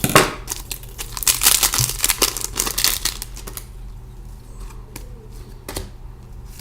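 A pack of hockey trading cards being torn open, its wrapper crinkling and crackling for about three and a half seconds, then a few scattered light clicks.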